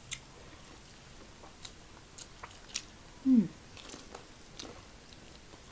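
Close-mic chewing of fried chicken gizzard (chicken diamond), with scattered small crunchy clicks. A short falling tone, the loudest sound, comes about three seconds in.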